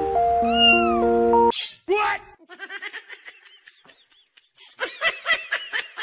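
A few notes of background music that cut off about a second and a half in, then a cat meowing: one loud meow, then quick short mews that grow louder and come faster near the end.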